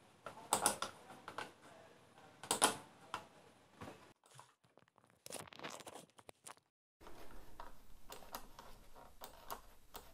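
Faint, scattered clicks and taps in small clusters, with a brief dead silence about two-thirds of the way through.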